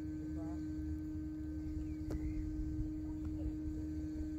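A steady, single-pitched hum runs over a low, uneven rumble. About half a second in, a faint, brief distant voice is heard.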